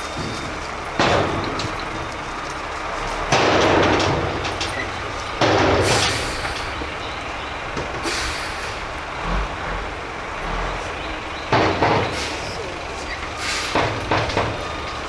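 Heavy construction machinery running steadily at the driveway work, with several loud, sudden noisy bursts over the engine, the longest about a second.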